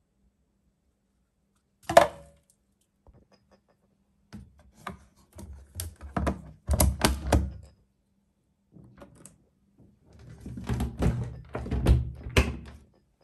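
Top-loading washing machine being closed by hand: a sharp click about two seconds in, then two spells of clattering knocks and clicks as the drum's flaps are pushed shut and latched and the lid is lowered.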